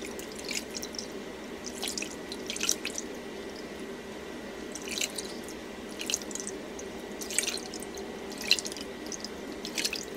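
Water splashing and dripping into a bowl as a face is rinsed with cupped handfuls of water: about eight short splashes at irregular intervals, roughly one a second.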